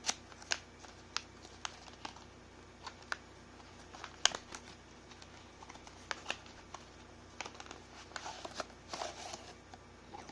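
Cardboard packaging being handled and opened by hand: an irregular run of sharp clicks and taps from the box and its flaps, with a longer rustle near the end as the inner box and foam insert slide out.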